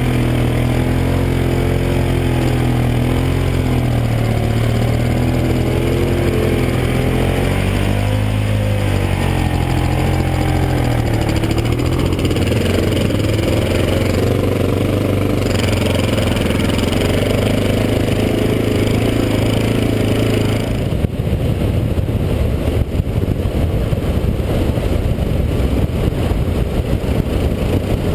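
Honda XR650 dirt bike's single-cylinder four-stroke engine running at low speed, its pitch rising and falling with the throttle. About twenty seconds in, the engine note gives way to a rough rush of wind on the helmet microphone as the bike picks up speed.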